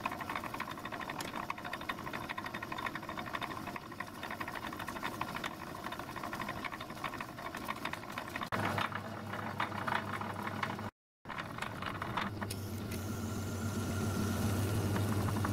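Metalworking lathe running: a steady motor hum with a light mechanical rattle. The sound changes abruptly twice, and in the last few seconds a deeper steady hum comes through and grows slightly louder.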